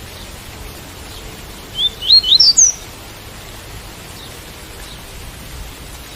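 Double-collared seedeater (coleiro tui-tui) singing one short phrase of quick rising notes about two seconds in, over a steady hiss of rain.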